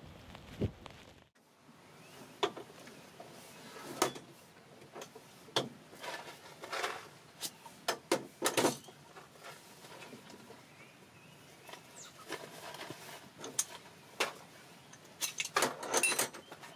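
Scattered clicks and light knocks of a small metal kettle and a metal cup being handled on a vehicle's metal platform. A quick flurry of crinkling from a paper sachet comes near the end. A step on grass is heard in the first second.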